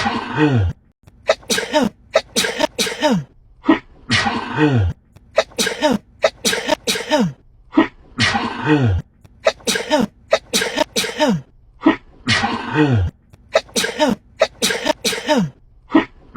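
A woman sneezing uncontrollably in rapid fits. Each fit is one longer voiced sneeze that falls in pitch, followed by several quick, sharp sneezes. The same sequence repeats about every four seconds as an edited loop.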